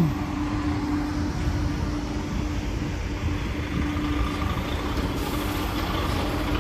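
DAF truck running steadily: a low rumble with a steady hum.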